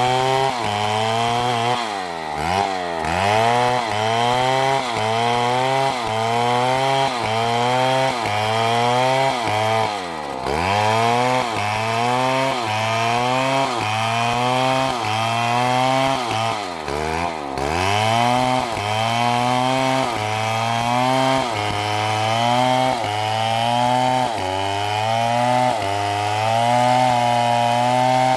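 Large STIHL chainsaw ripping a log lengthwise under load. The engine note sags and picks up again about once a second as the bar is worked into the cut, with three deeper bogs along the way.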